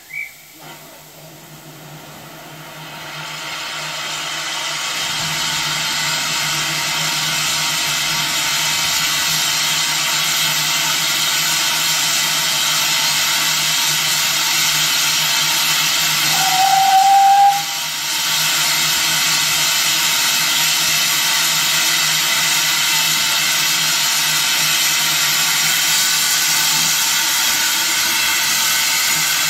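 Small Peckett 0-4-0 saddle-tank steam locomotive, No. 1340, standing with steam hissing loudly and steadily, building up over the first few seconds. A single short whistle note sounds about two-thirds of the way through, briefly the loudest sound.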